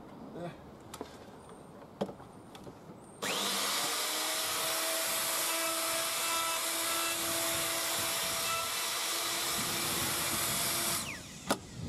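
Handling clicks, then a plunge router starts about three seconds in, its motor whine rising as it spins up. It runs steadily while cutting a stopped trench in a softwood board along a template, then is switched off near the end and winds down.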